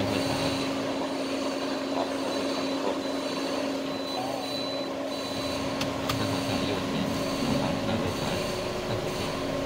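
Car engine running with a steady hum at low speed, as the car reverses slowly into a parking space.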